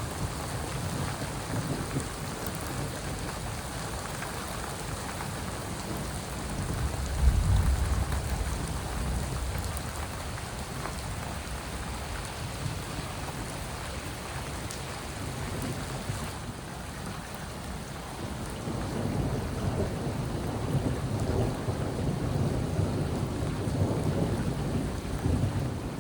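Steady rain falling during a thunderstorm, with a rumble of thunder about seven seconds in and more rolling thunder through the last third.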